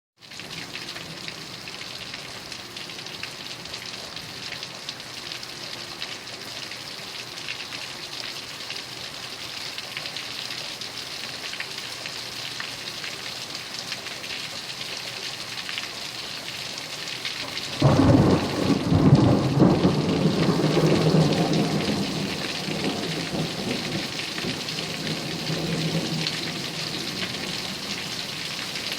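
Heavy rain pouring down steadily in a thunderstorm. About two-thirds of the way through, a sudden loud thunderclap breaks into a low rumble that dies away over several seconds.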